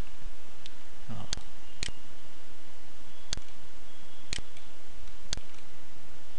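Computer mouse buttons clicking about half a dozen times, a second or so apart, over a steady microphone hiss.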